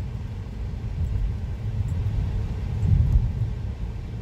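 Low, steady rumble inside a car's cabin while driving: engine and road noise.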